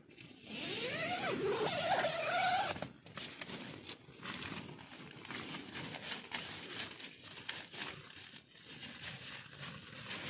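Tent door zipper pulled open in one long stroke of about two seconds, its rasp wavering up and down in pitch. After it come quieter rustling and handling noises from the tent fabric and gear.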